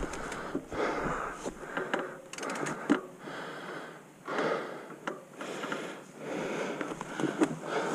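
A mountain biker breathing hard while pedalling slowly on a grassy trail, each breath swelling and fading about once a second, with a few light clicks and rattles from the bike.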